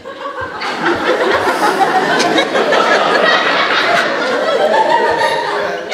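Theatre audience laughing together. The laughter swells about half a second in and tails off near the end.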